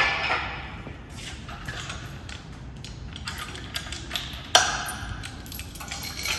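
Irregular metallic clinks and knocks of tools and parts being handled, with one louder clank about four and a half seconds in that rings briefly.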